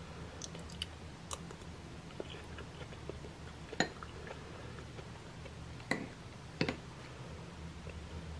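Metal spoon scooping soft ice cream from a ceramic bowl: quiet scraping and squishing with scattered light clicks and three sharper clinks, the first near the middle and two more a couple of seconds later, over a low steady hum.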